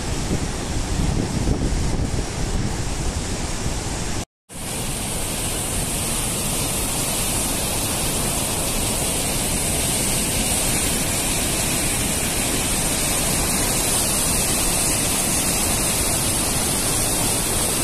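Rushing of a swollen, muddy river in flood: a steady noise of fast water, with wind buffeting the microphone in the first few seconds. After a short silent break about four seconds in, the torrent's rush goes on evenly with a strong high hiss.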